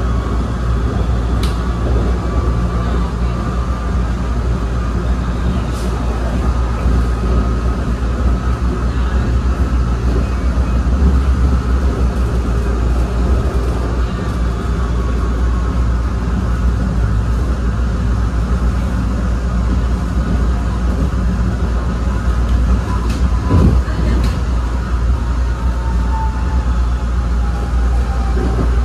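ABB N5 light-rail car running on the rails, with a steady low rumble and a faint motor whine above it. The whine falls in pitch over the last few seconds as the car slows. A few sharp clicks sound over the wheels, and one louder knock comes about three-quarters of the way through.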